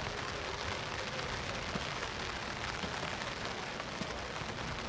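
Steady hiss of rain falling, an even noise with no distinct events.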